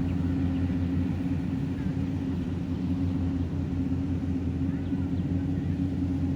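Yanmar YH700 combine harvester's diesel engine running at a steady, even speed, a constant low hum.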